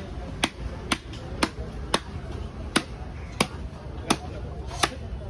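Long knife chopping fish fillet into pieces on a wooden log block. Nine sharp strikes land through the blade into the wood, about two a second at first and then a little slower.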